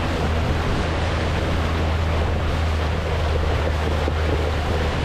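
Can-Am X3 side-by-side running steadily at a constant engine note while driving through a creek, with water splashing and rushing around the wheels.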